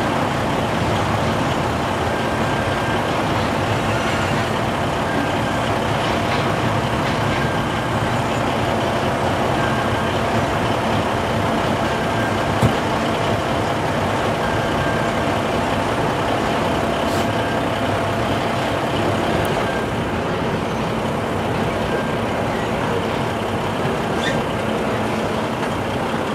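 Double-stack container freight cars rolling past at a level crossing: a steady rumble and clatter of wheels on rail, with a short high tone repeating every couple of seconds and one sharp click about halfway through.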